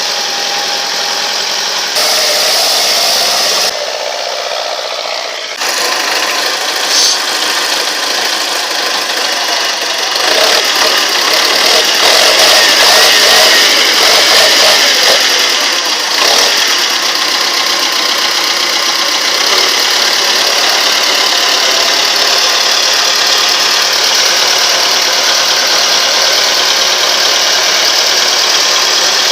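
Tractor engine running hard as the tractor pushes through thick snow. The sound changes abruptly a few times in the first six seconds, then holds steady.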